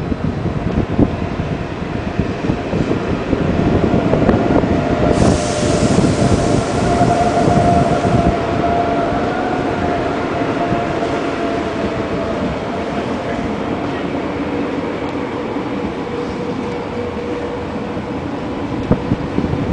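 SBB ICN (RABDe 500) electric tilting train running past, its wheels rumbling on the rails under a steady whine. About five seconds in, a hiss comes in for about three seconds.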